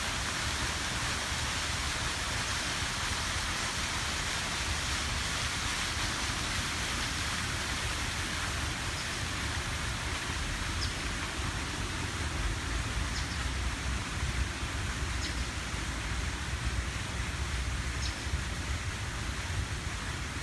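Steady outdoor wash of noise with a low, fluttering wind rumble on the microphone. A few faint, short, high chirps come in the second half.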